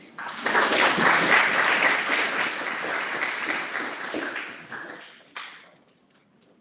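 Audience applauding, beginning just after the start and dying away over the last couple of seconds.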